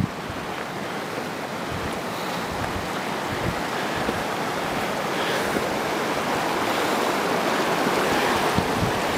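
Steady rush of a mountain river or stream, growing gradually louder, with a few low buffets of wind on the microphone.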